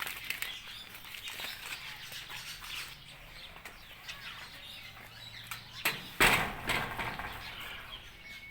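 Aviary birds, parrots among them, chirping and twittering in many small, quick calls. About six seconds in there is a brief, louder rustle or clatter.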